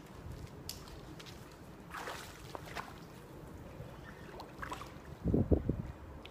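Hooked jack pike splashing at the water surface as it is drawn in and netted, with a cluster of louder low thumps a little before the end.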